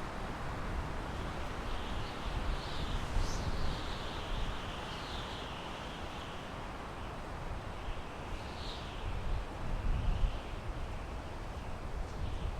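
Wind blowing through pine trees, a steady rustling hiss with a low rumble underneath. A bird calls with short high chirps a few times.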